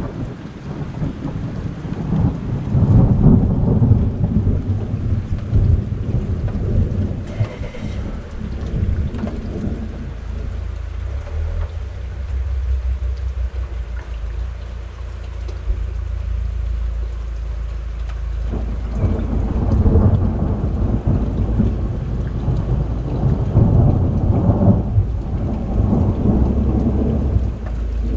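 Thunder rumbling over steady rain during a thunderstorm. Long low rolls swell about three seconds in, again about twenty seconds in and once more a few seconds later.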